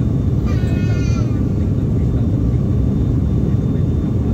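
ATR turboprop airliner's engines and propellers heard from inside the passenger cabin: a steady, loud drone with most of its weight low down. About half a second in, a brief high-pitched voice sounds over it for under a second.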